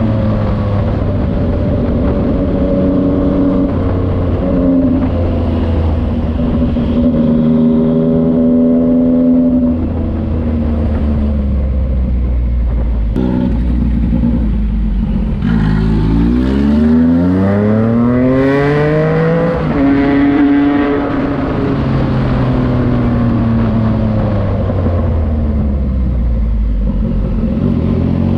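Yamaha MT-09's three-cylinder engine running through a Racefit Slash aftermarket exhaust. It holds steady for long stretches, then, about two thirds of the way in, climbs sharply in pitch over a few seconds and drops back down; it starts rising again near the end.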